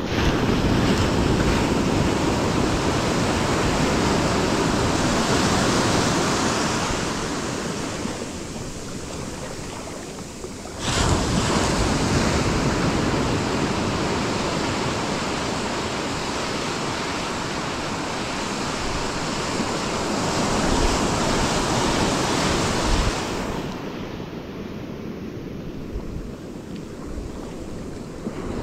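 Waves breaking and washing on a beach, with wind on the microphone. The noise swells and falls, with a sudden jump in level about eleven seconds in.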